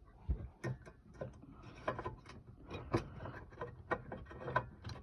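Hands handling a car headlight bulb and its plastic socket: a run of irregular small clicks and rattles.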